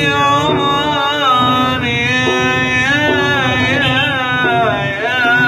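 A young man singing a wavering, ornamented melody with his mouth pressed into a large plastic bowl, over a steady low hum.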